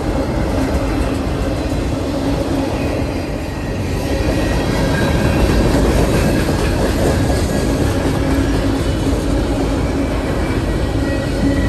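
Freight cars of a passing train rolling by at speed: a continuous rumble and clatter of steel wheels on the rails.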